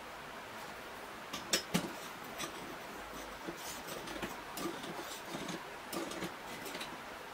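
Small clicks and taps of a steel angle bracket and pliers being handled against an angle grinder's metal gear head. There are two sharper clicks about a second and a half in, then a run of lighter taps and rustles, over a steady faint hiss.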